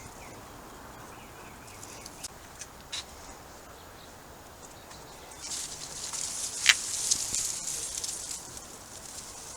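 Outdoor background with a few light clicks, then a few seconds of rustling noise with one sharp click in the middle.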